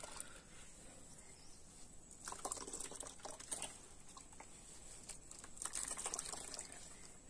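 Hands squeezing soaked coco peat in a metal bowl: faint wet squelching and water dripping back into the bowl, in two spells of activity about two and six seconds in.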